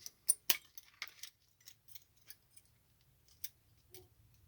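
Snips cutting the nickel strips that join 18650 lithium-ion cells from a laptop battery pack: two sharp metallic snaps about half a second in, then scattered fainter clicks as the cells are handled.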